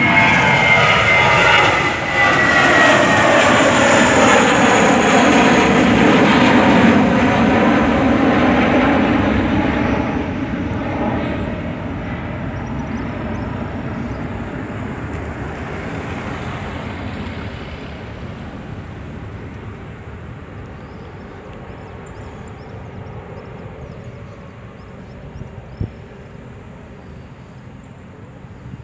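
Airbus A320 jet engines at takeoff thrust as the airliner climbs out. The sound is loud at first, with tones sliding down in pitch as it passes, then fades steadily over the next twenty seconds as it climbs away.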